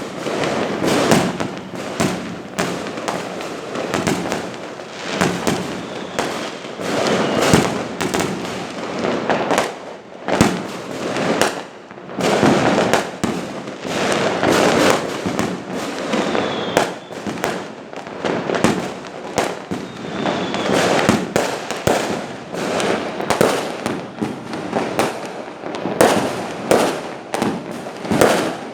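Fireworks going off without a break: a dense run of bangs and crackles, several a second, with a few faint whistles now and then.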